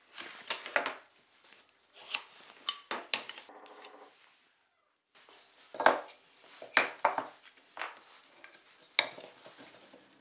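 Plywood pieces knocking and scraping as they are handled and set down on a ribbed rubber bench mat, in short irregular clusters of sharp knocks.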